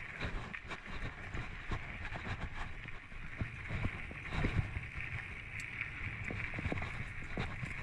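Giant Anthem full-suspension mountain bike rolling fast over a dry, rough dirt trail: tyres crunching and rumbling on the ground, with frequent clicks and rattles from the bike over bumps. A steady high hiss runs throughout, along with wind on the microphone.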